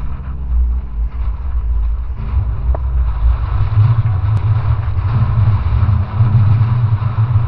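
Strong wind buffeting the microphone over rushing water as a sailing yacht drives through rough, breaking seas. A low steady hum sits under it for the first couple of seconds.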